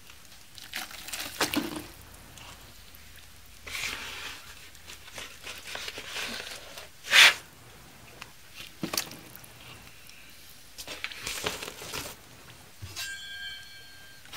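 Plastic scoop digging into a bag of top coat plaster powder and tipping it into a bucket of water: a series of separate rustling, scraping swishes, the loudest a short sharp one about seven seconds in.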